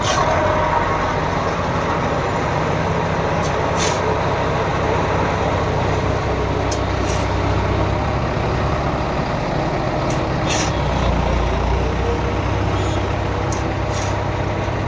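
Heavy engine of road-construction machinery running steadily, with a deep drone, and a few brief sharp hisses or clicks above it.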